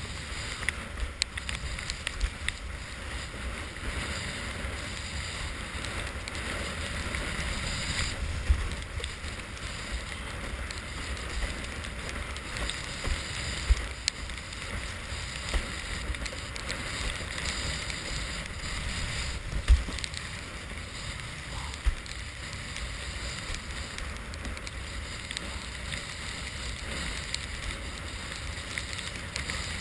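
Wind rushing over a head-mounted GoPro and water hissing and splashing along a windsurf board sailing through chop. Every few seconds there are sudden low thumps as the board slaps into the waves.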